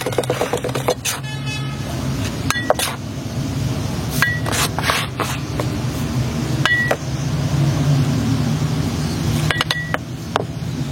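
A motor running steadily with a low hum, with a few short, sharp clinks, some ringing briefly, scattered through it.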